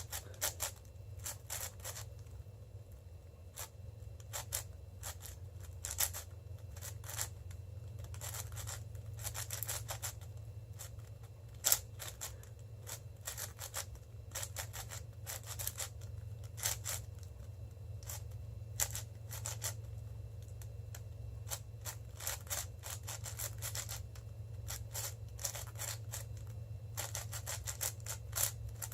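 Cubicle Red M 6x6 speedcube being turned fast: rapid, irregular clicking and scraping of its plastic layers.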